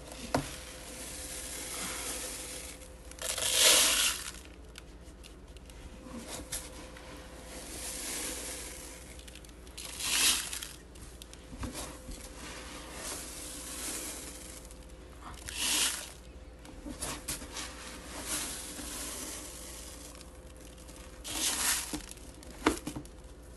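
Dry rice grains scooped up by cupped hands and poured into a bowl, measuring four double handfuls: four louder pours of rattling, hissing grain about six seconds apart, with softer shuffling of the grain between them.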